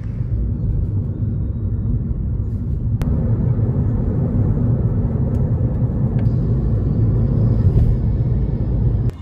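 Steady low rumble of a car travelling at speed, road and engine noise heard from inside the vehicle.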